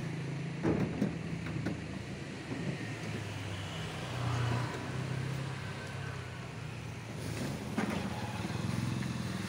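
Steady hum of a motor vehicle's engine running, with a few knocks and rattles of plastic car bumpers and lamp units being handled, one near the start and one near the end.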